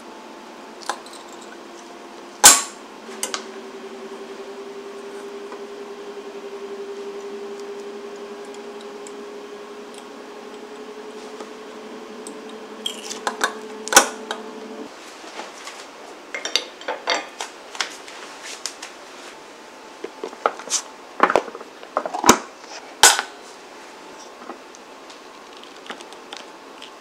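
Metal clicks and clacks from a wire egg slicer pressed through a hard-boiled egg on a stone countertop. There are two loud clacks, one about two and a half seconds in and one about fourteen seconds in, and a run of smaller clicks and clinks in the second half. A steady hum, slowly rising in pitch, sits underneath and stops about halfway through.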